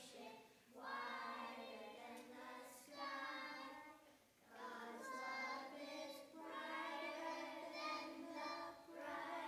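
A small group of children singing a song together in unison, with a short break between phrases about four seconds in.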